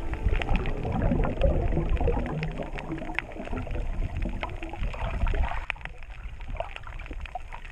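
Water noise picked up by an action camera's microphone while it is submerged: a muffled low rumble and wash of moving water with many scattered sharp clicks and crackles, louder in the first few seconds.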